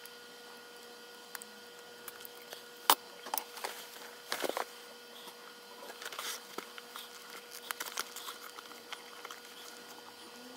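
Hand work on a leather baseball glove and its laces: scattered small clicks, rustles and creaks as the lacing is cut and handled, with one sharp click about three seconds in.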